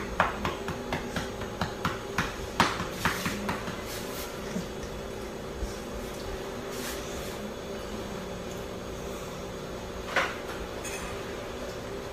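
A quick run of light knocks and taps for about four seconds, then a steady low hum, with one more knock about ten seconds in.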